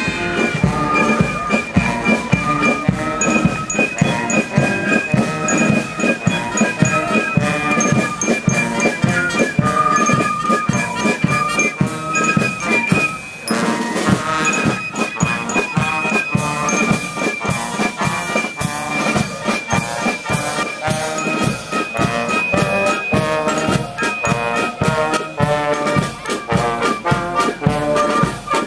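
Brass marching band playing a march, with trumpets and trombones over a steady drum beat. It strikes up right at the start.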